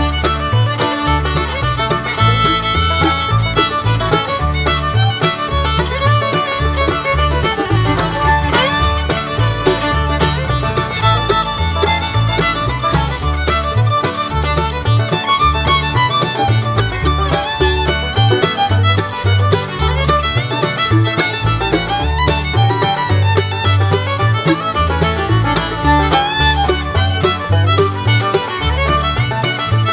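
Background music: an upbeat bluegrass-style tune led by fiddle, with a steady bass beat.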